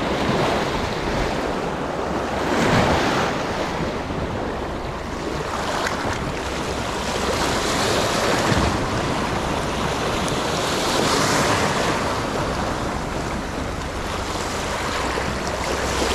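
Sea waves washing in, the noise swelling and easing every few seconds, with wind buffeting the microphone.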